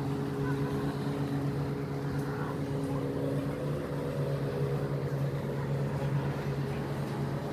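A steady low engine hum with a few higher tones over it, holding an even pitch.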